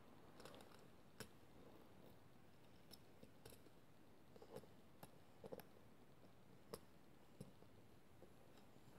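Faint, scattered clicks and taps of LEGO plastic as a minifigure is pressed into a LEGO car's seat, about eight small clicks in all.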